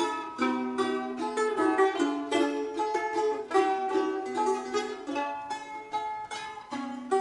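Balalaikas played together as an ensemble: a quick run of plucked notes over repeated lower notes.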